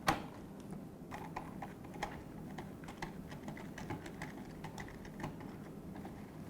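Hand tool backing out the screws that hold a dishwasher water valve to its bracket: one sharp click at the start, then many small irregular clicks and ticks of the driver and metal screws.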